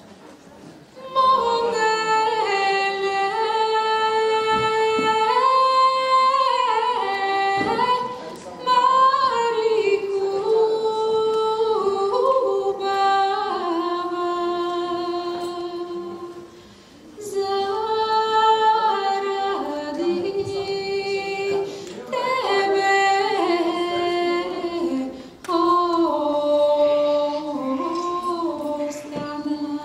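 A woman's solo voice singing a slow melody of long held notes that step up and down, with no clear accompaniment. It starts about a second in and runs in several phrases, each cut by a short breath pause.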